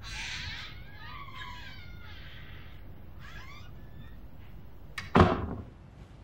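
A metal grille door being unlatched and swung open, with a rattle at first and then its hinges squeaking for a couple of seconds. About five seconds in comes a loud thud as a door is shut.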